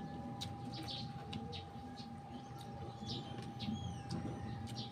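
Small birds chirping in short repeated calls, with a few quick gliding whistles about three seconds in, over a steady faint hum and a low rumble.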